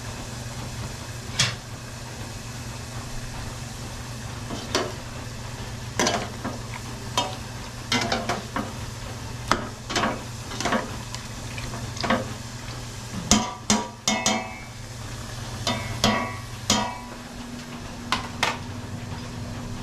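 A utensil stirring food in a pan, with frequent sharp knocks and scrapes against the pan, some briefly ringing, over a low sizzle. A steady low hum runs underneath.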